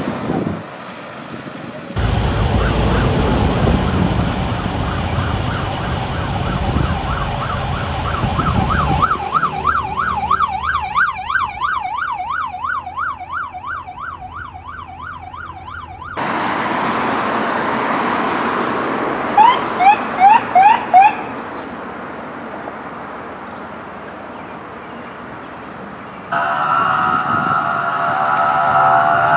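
Sirens of responding fire apparatus, across several cuts: a heavy vehicle's engine rumbling under an electronic siren on yelp, rising and falling rapidly; then about five short siren chirps in a quick run; then a steady blaring horn-like tone, with a siren starting its rising wail near the end.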